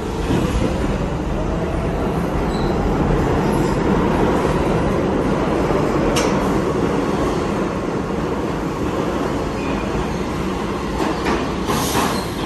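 A New York City subway train accelerates out of an underground station with a rising traction-motor whine over a steady wheel and rail rumble. A few sharp clicks come from the wheels over the rail joints, about halfway through and again near the end.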